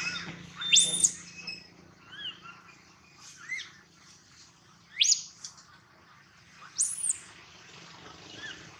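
Baby macaque crying: three loud, high-pitched squeals that rise and fall, about a second in, at about five seconds and near seven seconds, with fainter, shorter calls in between.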